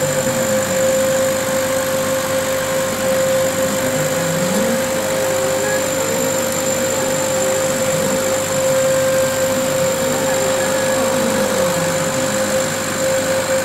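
Laser cutting machine at work on acrylic: a steady mechanical hum with a constant tone, under the motors' low whine that rises and falls over and over as the cutting head speeds up and slows along the curves of the cut.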